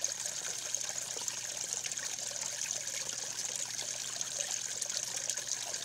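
Steady trickle of running water: an even, continuous splashing hiss.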